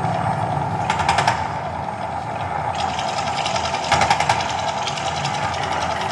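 Volcano show eruption, amplified through outdoor speakers: a steady rumble and roar broken twice by short bursts of fast rattling, about a second in and again about four seconds in.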